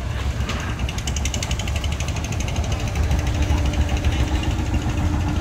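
Small wooden fishing boat's engine running steadily with a low drone and a fast ticking clatter over it, as the boat comes alongside; a steady hum joins in about three seconds in.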